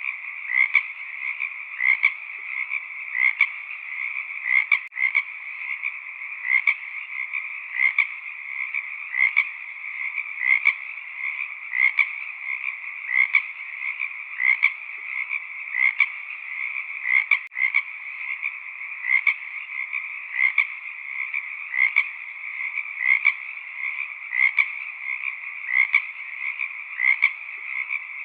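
A dense chorus of frogs calling: a steady, unbroken trill with louder individual calls pulsing through it at an even rhythm, a little faster than once a second.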